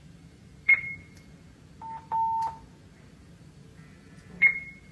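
Handheld police two-way radio beeping: a click with a short high beep, then two lower beeps, a short one and a longer one, about two seconds in, and another click with the high beep near the end.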